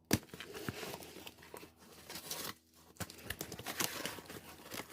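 Parcel packaging being torn open and crinkled by hand: a sharp snap right at the start, then irregular crackling and rustling with a couple of brief pauses.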